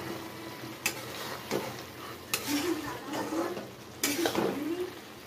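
Steel ladle stirring and scraping a thick cabbage and potato curry in a kadai, with several sharp clinks of the ladle against the pan. A faint sizzle of the simmering curry runs underneath.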